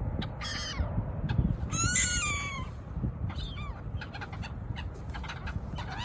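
Gulls calling harshly overhead: a short call about half a second in, a louder, longer call with a falling end around two seconds in, and a brief one just after three seconds.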